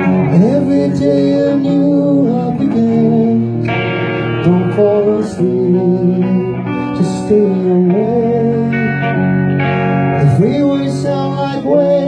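Hard rock band playing live: electric guitar with a singer's voice wavering and sliding in pitch over it.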